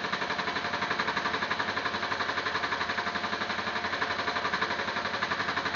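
Sewing machine stitching at a steady speed, its needle striking in a rapid, even rhythm as it sews a Velcro strip onto heavy vinyl.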